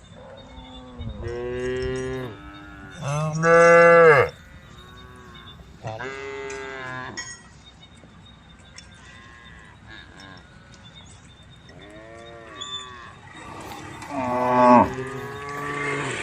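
Cattle mooing, calling to the herd: about six long moos one after another, some faint, the loudest about four seconds in and another loud one near the end.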